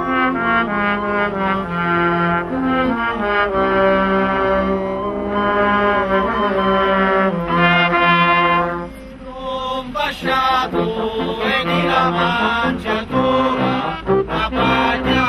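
Street band of trumpet and low brass playing a traditional Sicilian Christmas tune in held notes; after a short break about nine seconds in, men's voices sing a verse together with the band.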